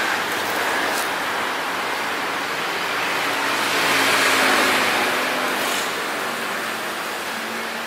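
Steady street traffic noise, with one vehicle passing that swells and fades about four seconds in.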